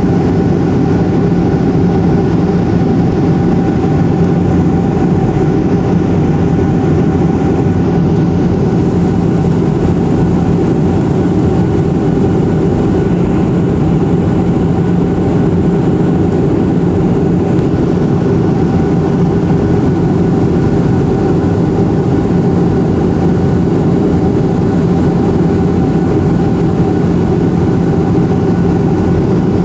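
Airplane cabin noise in flight: the engines and rushing air make a steady, loud drone with a few constant hums in it.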